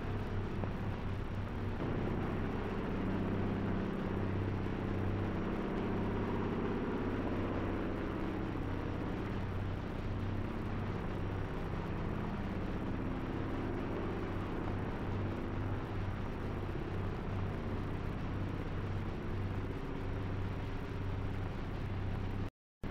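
Steady drone of a propeller aeroplane's engine, a low hum with a slowly wavering pitch above it. It cuts out for a moment near the end.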